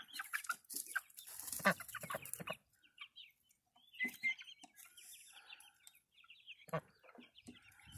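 Chickens clucking and chirping softly, with a run of quick high chirps about four seconds in.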